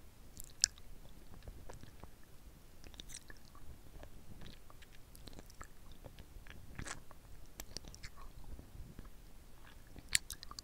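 Close-miked mouth sounds of a hard lollipop being sucked and licked: irregular wet smacks and clicks of lips and tongue on the candy, with a sharp click about half a second in and another near the end.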